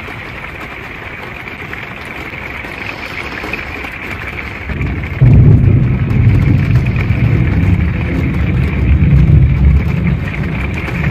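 Steady heavy rain on a truck camper, then about five seconds in a loud clap of thunder breaks and rolls on as a deep rumble.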